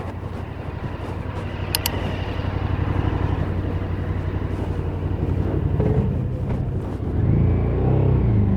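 Stock KTM 1290 Super Adventure S 1301 cc V-twin engine running steadily, with two brief high ticks near two seconds in. It gets clearly louder about seven seconds in.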